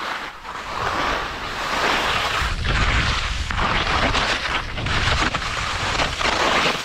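Skis sliding and scraping through soft spring corn snow while skiing moguls, with wind noise on the microphone that rumbles strongest in the middle.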